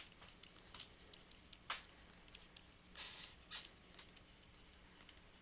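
Faint taps and scratches of a stylus writing on a pen tablet, with a longer scratchy stroke about three seconds in, over a faint steady hum.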